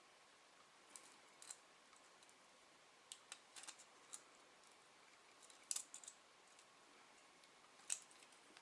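Faint, irregular small clicks of multi-tool pliers gripping and bending a steel paperclip wire into a zigzag rake tip.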